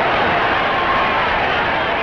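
Boxing crowd noise: many spectators' voices shouting at once in a steady, loud din.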